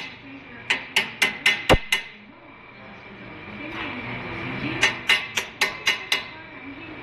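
Hammer striking metal in two quick runs of about six blows each, roughly four a second, with a short metallic ring after each blow; work on a front wheel hub and bearing.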